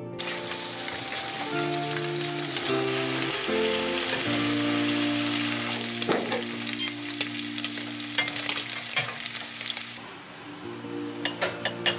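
Slices of duck meat sizzling in oil in a frying pan; the sizzling stops about ten seconds in, followed by a few light clicks near the end. Background music plays underneath.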